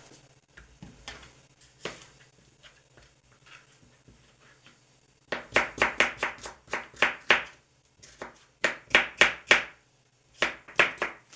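Chef's knife slicing a red bell pepper into strips on a plastic cutting board. Faint handling sounds at first, then from about halfway, three quick runs of sharp knife taps on the board, about four or five a second.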